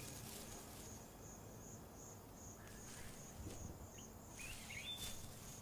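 Faint high insect chirping, an even pulse of about two and a half a second, with a few short bird chirps near the end.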